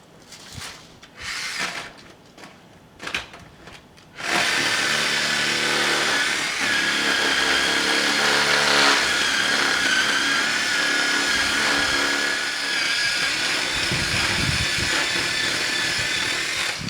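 A few brief rustles and scrapes, then about four seconds in a power saw starts and runs steadily with a high whine, cutting up the wood of a wind-broken flowering peach tree. It stops just before the end.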